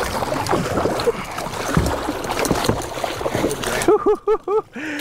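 Water splashing and slapping at the boat's side as a freshly gaffed yellowfin tuna thrashes. About four seconds in, a man gives a quick run of short excited shouts.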